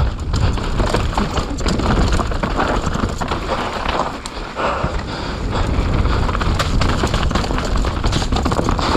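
Mountain bike ridden fast down a wet dirt trail: heavy wind rumble on the helmet or bike microphone, with tyre noise and constant irregular clicks and rattles from the bike over rough ground.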